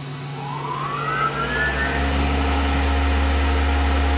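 CNC milling machine spindle spinning up: a whine rising in pitch over the first two seconds, then settling into a steady running hum.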